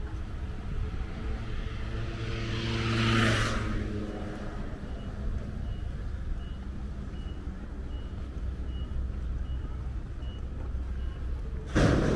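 Road traffic rumbling, with one vehicle passing about three seconds in. From the middle on, a short high beep repeats about every two-thirds of a second, like a truck's reversing alarm, and a sudden loud hiss comes near the end.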